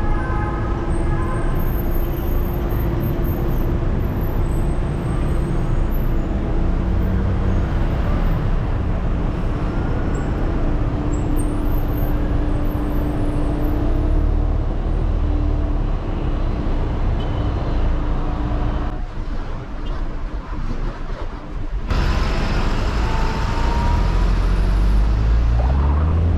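City traffic and road noise heard from a car being driven through town: a steady rumble of engine and tyres, with a held hum through the first half. There is a brief quieter stretch about three-quarters of the way through, and an engine rising in pitch near the end.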